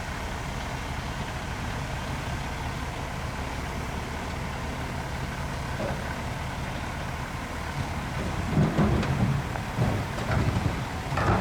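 Heavy diesel earthmoving machinery running steadily with a low engine drone. About eight seconds in, irregular louder rumbling and knocking sets in.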